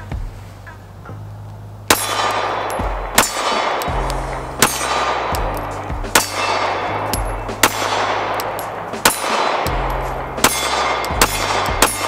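Custom Glock 19 9mm pistol fired at a slow, steady pace, about nine shots roughly a second and a half apart, each with a ringing clang like a hit on a steel target. Background music with a steady bass line runs underneath.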